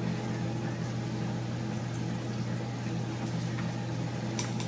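A steady low machine hum, like a motor or fan running, with a faint crinkle of plastic wrap near the end as the sushi roll is handled.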